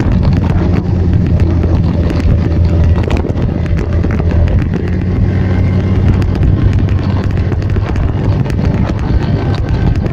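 Vespa scooter engines running steadily at riding speed, with wind buffeting the microphone.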